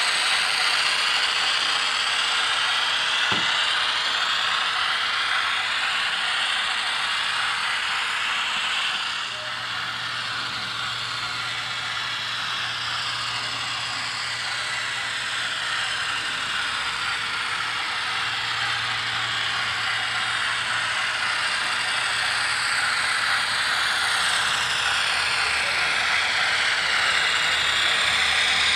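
HO scale model diesel locomotive (GE 44-tonner) running on track: a steady mechanical whirr and clatter of its motor, gears and wheels on the rails. It is louder near the start and again near the end, when it passes close by.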